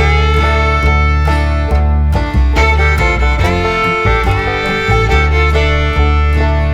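Background music: a lively string-band tune led by fiddle over plucked strings and a steady bass.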